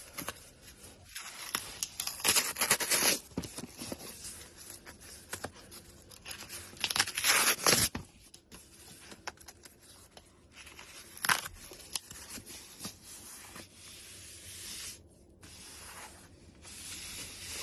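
Insulation being torn and crinkled by hand in irregular bursts, loudest around two and seven seconds in, with scraping between and a sharp knock about eleven seconds in.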